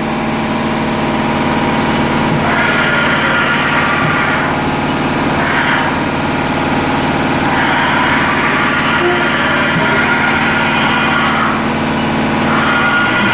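Haas VF-5D vertical machining center axis jogging back and forth under its servo drive, a whine heard in four stretches of one to four seconds. Underneath is the steady hum of running shop air compressors.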